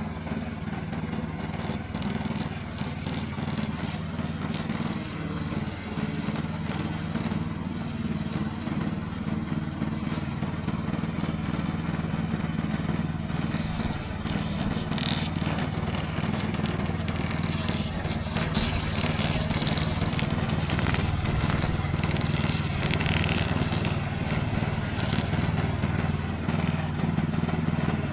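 Gasoline engine of a tracked remote-control slope mower running steadily. Crackling and crunching noises are mixed in, mostly in the second half.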